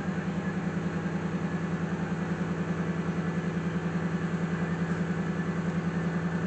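Engine of a 1991 Camaro converted into a pickup (the El Camaro) idling steadily, with an even, rapid pulsing beat.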